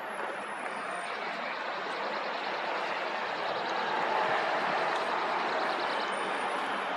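City street traffic: a motor vehicle running close by, its noise growing slightly louder over the seconds.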